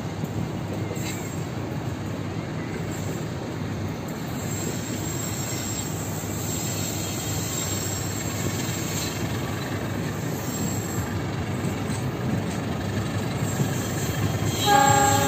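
Passenger train coaches rolling slowly over a concrete railway viaduct: a steady rumble of wheels on rail, with a faint high wheel squeal at times. A brief horn-like pitched tone sounds near the end.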